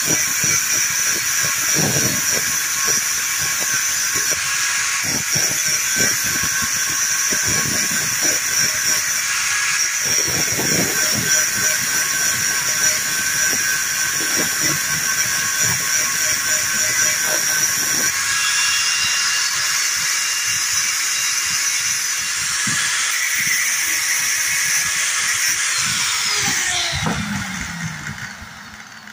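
Electric angle grinder running at full speed with a steady whine, grinding down the upper face of a sewing machine's reverse-feed cam so that the reverse stitch becomes as long as the forward one; rough scraping comes and goes as the metal is pressed to the disc. Near the end the grinder is switched off and its whine falls in pitch as it spins down.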